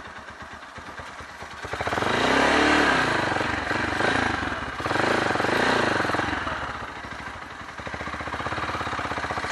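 Motorstar Z200 sport bike engine revving hard twice, pitch rising and falling with each burst, as the bike is forced through thick mud. Its note settles back to a lower, steadier run near the end.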